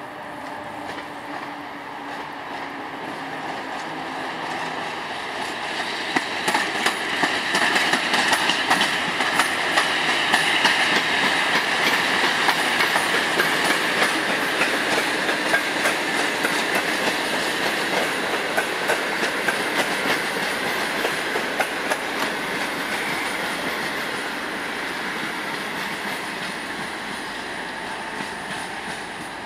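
PKP class EU07 electric locomotive hauling a passenger train past, with the clicking of wheels over rail joints. The sound builds to its loudest about a third of the way in as the locomotive goes by, then fades slowly as the coaches roll past.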